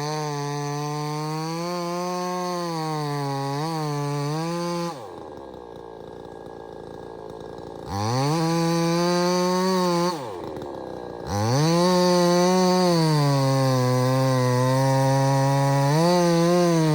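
Two-stroke gas chainsaw running at high revs with a slightly wavering pitch. About five seconds in and again about ten seconds in, the throttle is let off, and the engine drops toward idle before revving back up.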